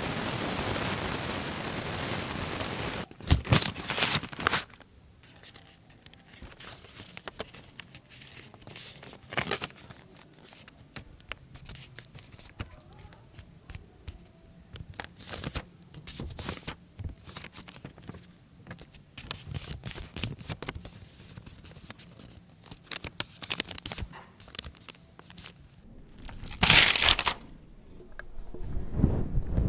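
Foley crinkling and tearing sounds: handled material crackling and rustling in irregular short bursts. It opens with a steady hiss for about three seconds and ends with a louder burst.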